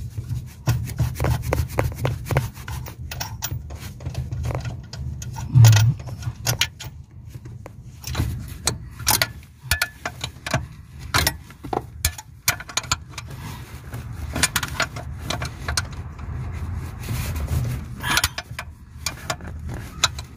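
A wrench working loose the brake booster's mounting nuts behind the brake pedal bracket: irregular metallic clicks and scraping, with one louder knock about six seconds in.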